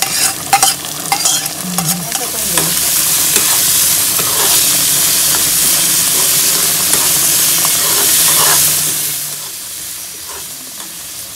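Chopped onions frying in hot coconut oil in a kadai, with a metal spoon clicking and scraping first. A loud sizzle swells about two seconds in, holds, then fades near the end as the onions settle into the tempering.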